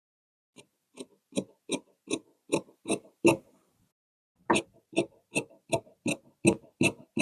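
Tailor's shears cutting through fabric in a run of steady snips, about two and a half a second, with a short pause near the middle before the snipping resumes.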